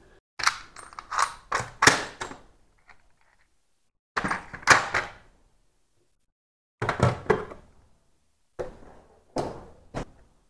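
Metal tool-chest drawers sliding open and shut on their runners, in about four separate bursts of clunks and knocks.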